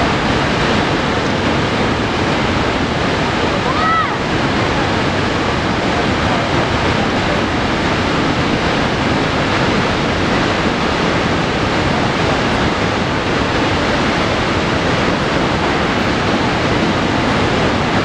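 Niagara Falls: a huge volume of water plunging over the crest into the mist below, making a loud, steady, unbroken rushing noise.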